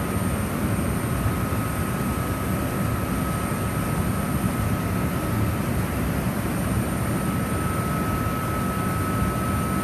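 EF65 electric locomotive's cooling blowers running through its side louvers: a steady, even rush of air with a thin constant whine over it.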